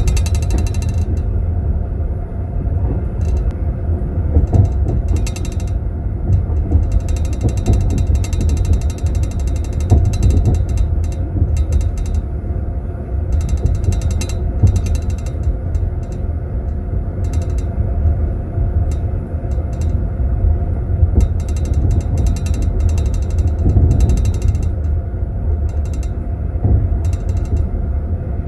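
Moving passenger train heard from inside a sleeper compartment: a steady low rumble of the wheels on the rails, with teaspoons rattling in tea glasses in metal glass holders in bursts that come and go.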